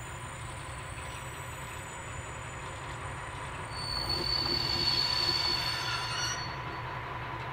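DR class 112 diesel-hydraulic locomotive rolling in with its train and braking to a stop: a steady low engine rumble, with a high brake squeal rising about four seconds in and cutting off suddenly as the train halts.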